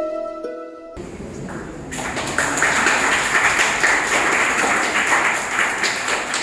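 Audience applause, starting about a second in as music breaks off, then a steady patter of many hands clapping.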